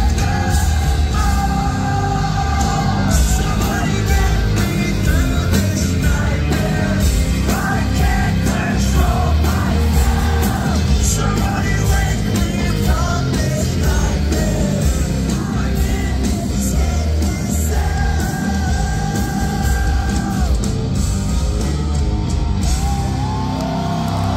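Hard rock band playing loud live through a venue PA: a male singer's shouted and sung vocals over heavy drums, cymbals and bass, with some long held vocal notes.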